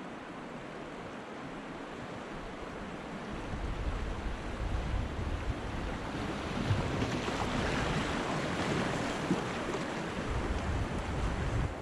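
Rushing water of a shallow river riffle as a kayak runs down through it, the water noise growing louder from about four seconds in.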